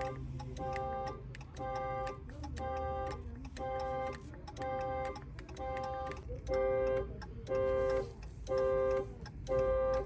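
A dual-tone car horn honking in even pulses, a little over once a second, about a dozen times: the factory anti-theft alarm of a 2015 Chrysler 200 has been set off.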